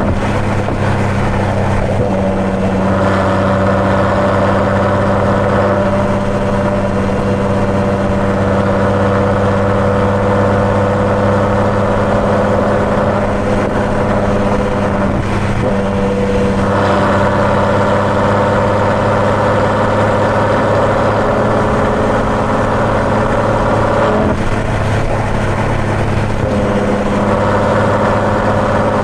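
Ferrari GTC4Lusso's V12 running at a steady cruise through its Capristo exhaust, with tyre and road noise; the engine note shifts slightly a few times.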